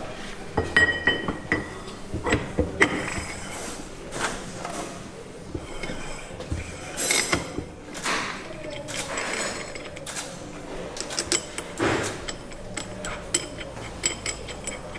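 Steel ring gear and limited-slip differential housing clinking and knocking against each other as the heated ring gear is shrink-fitted onto the differential in a vise. The sound is a string of sharp metallic clinks and taps in several clusters, a few ringing briefly.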